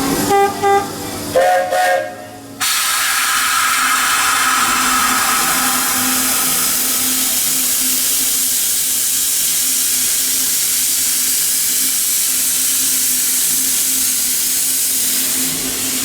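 Steam locomotive venting steam: a loud, steady hiss that starts abruptly about two and a half seconds in. Before it, a few seconds of music with stepped notes cut off short.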